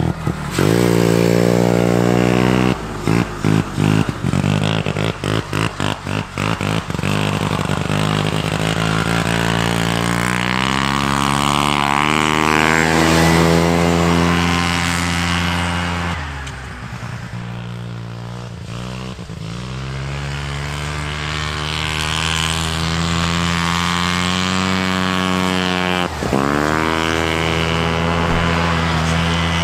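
Arctic Cat Panther snowmobile's 303 rotary (Wankel) engine running under load as the sled is ridden, its pitch rising and falling with the throttle. The sound is choppy with quick dips a few seconds in, then falls away sharply and climbs again just past halfway and once more near the end.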